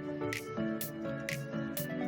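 Background music with a steady beat: instrumental notes over a crisp percussion hit about twice a second.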